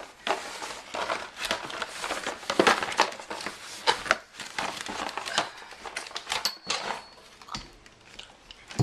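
Packaging being handled while a stunt scooter is unboxed: plastic and paper crinkling and rustling, with many sharp clicks and knocks.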